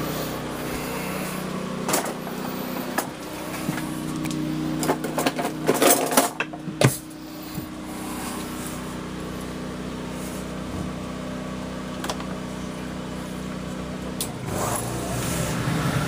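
Champion 2800-watt inverter generator running with a steady hum, heard from inside the RV, with economy mode off as the 15,000 BTU rooftop air conditioner is switched on and comes up to running on its power. A cluster of knocks and clicks comes about five to seven seconds in.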